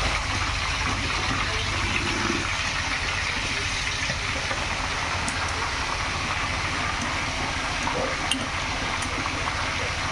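Oil sizzling in a wok on a gas stove, a steady even hiss, with a few light clicks of metal tongs against a pot near the end.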